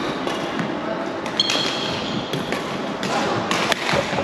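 Badminton rally: sharp smacks of rackets hitting the shuttlecock every second or so, with a brief squeak of sneakers on the wooden court about a second and a half in, over faint hall chatter.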